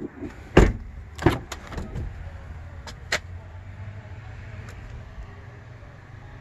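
Car door on a Jeep Grand Cherokee shutting with a heavy thud about half a second in, followed by another knock and a string of smaller latch and handle clicks as the rear door is opened. A steady low hum runs underneath.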